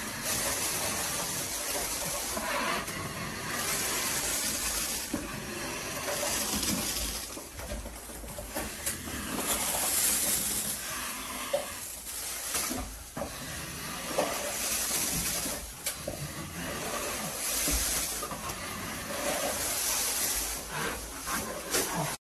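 Wide scraping knife scraping popcorn texture off a ceiling in repeated strokes: a hissing scrape that swells and fades with each pass.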